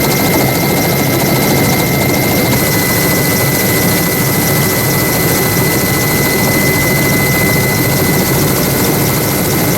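Steady engine or turbine noise with a constant high whine, unchanging throughout.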